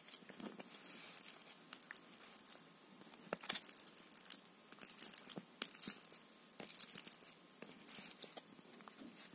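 Fingers crumbling cat pâté in a thin aluminium foil tray: soft, irregular crinkling and clicking of the foil as the meat is pressed and broken up.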